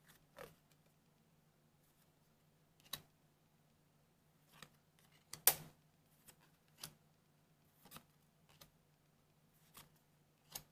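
Trading cards handled and flipped one by one: scattered short clicks and slides of card stock, about nine in all, the loudest about five and a half seconds in.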